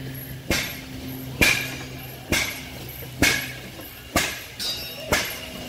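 Half-breed oilfield engine (an old steam engine converted to run on gas) running slowly, six sharp, evenly spaced exhaust cracks at a little under one a second.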